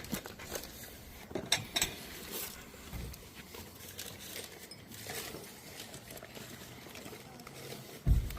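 Light knocks and clinks of small objects being picked up and set down, with a low thump just before the end.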